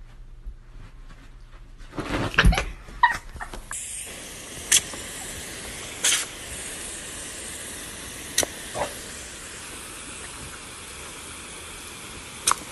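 A garden hose spray nozzle hisses steadily from about four seconds in, with a few short, sharp sounds over it. Before that, a burst of loud, sharp noises comes about two seconds in.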